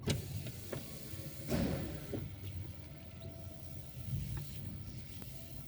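Car creeping forward at low speed, a steady low engine and tyre hum with a few light clicks and a louder thump about one and a half seconds in.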